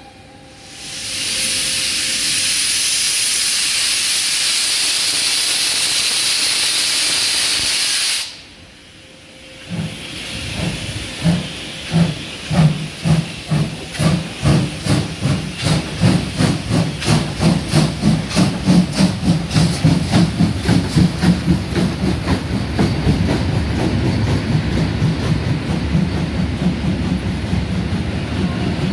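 Class 52 steam locomotive starting a train: a loud steady hiss of escaping steam for about eight seconds, a short pause, then the exhaust chuffs beginning slowly and quickening as it pulls away, with steam spurting from the cylinder drain cocks. Near the end the coaches rolling by.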